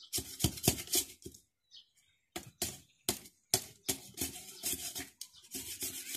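Knife shaving down a thin bamboo stick in repeated short, sharp scraping strokes, coming in quick runs with brief pauses between them.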